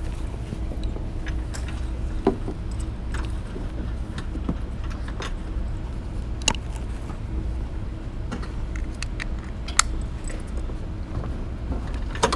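Scattered light clicks and rattles on a stationary go-kart over a steady low hum, with a sharper click near the end as a hand reaches over the steering wheel.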